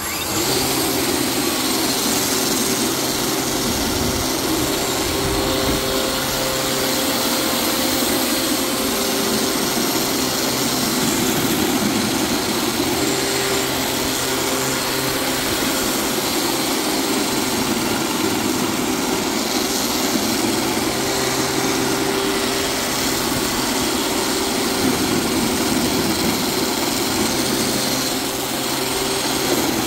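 Ryobi 40V brushless cordless snow shovel running steadily under load, its electric motor and spinning paddle humming evenly as it scoops and throws snow.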